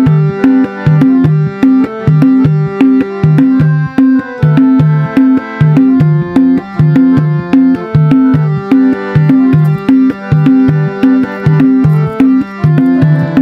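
Intro music: a loud, even rhythm of two alternating low notes repeating several times a second, with higher notes over it.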